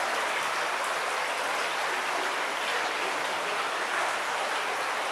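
Steady rushing of running water in an underground drain, an even hiss with no separate drips or knocks.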